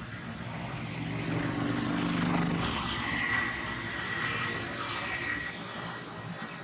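Steady drone of a passing motor engine with a low hum, swelling to its loudest about two seconds in and then fading. A thin, steady high whine sounds over it from about three to five seconds in.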